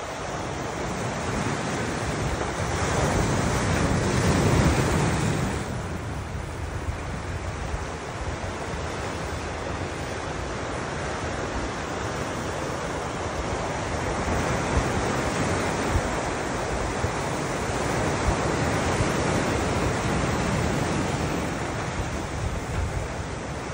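Ocean surf washing on the shore, swelling and easing, with wind buffeting the microphone.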